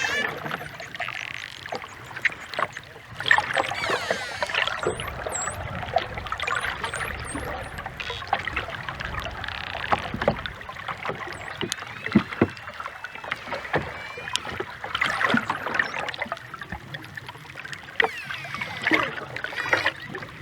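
Dolphins vocalising underwater: rising and falling whistles mixed with many sharp echolocation clicks and rapid click trains, over a steady watery hiss.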